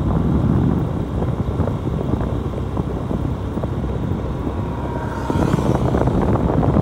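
Motorcycle running on the road while being ridden, with wind buffeting the microphone; the noise grows a little louder about five seconds in.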